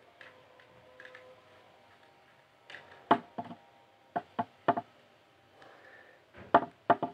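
Small screwdriver prying at the seam of a plastic modem case: faint scraping ticks, then sharp plastic clicks and knocks, about five in the middle and three in quick succession near the end.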